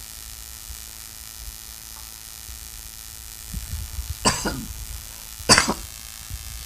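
Two brief throat sounds from a person, about four and five and a half seconds in, over a low steady hum.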